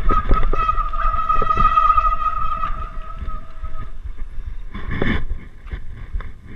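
Mountain bike disc brakes squealing with one steady high-pitched tone while the bike clatters and knocks over rough, rocky trail. The squeal stops a little past halfway, and a short loud rush follows about a second later.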